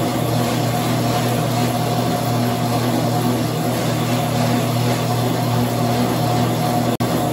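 Motorized treadmill for a sheep running with a steady mechanical hum: a low drone with a fainter higher tone over a noisy rush. The sound cuts out for an instant near the end.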